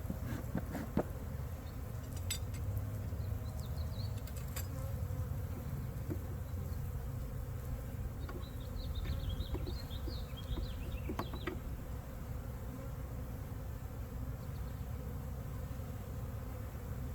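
Honey bees buzzing in a steady low hum over the open hive, with a few light clicks in the first few seconds.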